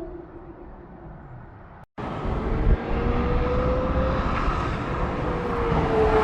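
Ferrari 360's V8 through a Tubi exhaust, its note fading as the car moves away. After a brief cut about two seconds in, the engine is heard again as a steady note growing louder as the car approaches.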